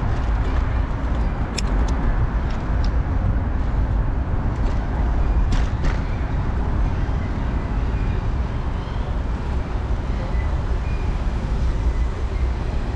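Steady wind rumble on an action camera's microphone while riding a bicycle, with a few short clicks along the way.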